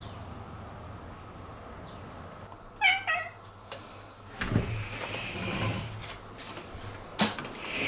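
A cat gives one short, wavering meow, then soft thumps and rustling follow as it moves, with a sharp knock near the end.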